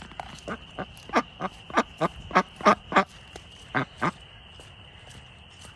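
Domestic ducks quacking in a fast, irregular run of short calls, loudest in the first three seconds and thinning out after about four. A steady high-pitched whine runs underneath.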